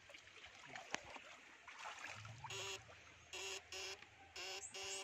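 Electric fishing shocker buzzing in five short bursts, each starting and stopping abruptly, over faint running water, with a sharp click about a second in.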